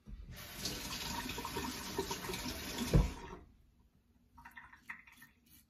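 Tap water running into a sink for about three seconds, with one sharp knock just before it stops. Then a few short scrapes of a RazoRock Switch double-edge safety razor with a Derby Extra blade cutting lathered stubble.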